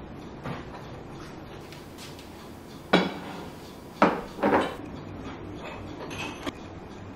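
Ceramic plates and a bowl clattering as they are set down on a table: a sharp clink about three seconds in, then two more about a second later, with a few lighter knocks around them.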